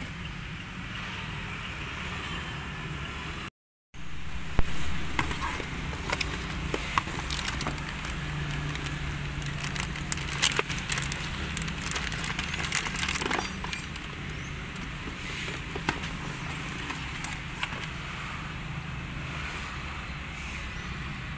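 Clear plastic packaging bag crinkling and crackling as a USB charger module is handled and unwrapped, in quick irregular clicks that are busiest in the first half, over a steady low hum.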